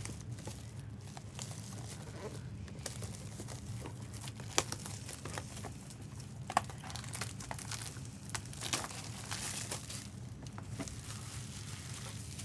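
Plastic packaging being handled, crinkling, with scattered sharp clicks, over a faint steady low hum.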